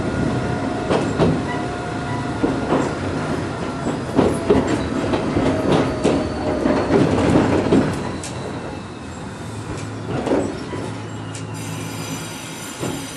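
Gakunan Railway 7000 series electric railcar running over jointed track, heard from inside the cab: wheels clacking over rail joints and points, with some wheel squeal. The running noise grows quieter after about eight seconds.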